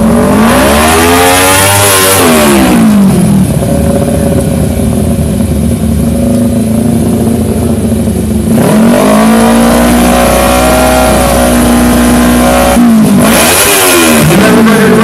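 250cc sportbike engine revved at the drag-strip start line. It sweeps up and back down, then is held at a steady high pitch for several seconds, twice, with a quick blip near the end.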